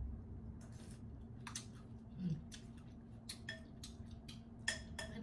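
Close-up eating sounds of pounded apple salad: crisp chewing and lip smacks, a quick irregular series of sharp clicks, with a spoon scraping in a glass bowl. A brief low 'mm' a little past two seconds in, over a steady low hum.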